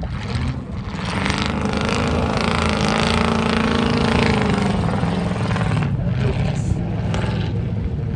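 Off-road competition buggy's engine revving under load as it drives through a muddy pit and climbs out. It gets louder about a second in, rising in pitch toward the middle and then easing off.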